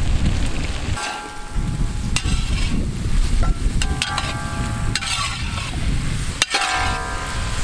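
Metal spatula scraping and stirring chicken and green chilies in a large iron wok, the pan ringing briefly with several of the scrapes, over the sizzle of the frying, with a low rumble underneath.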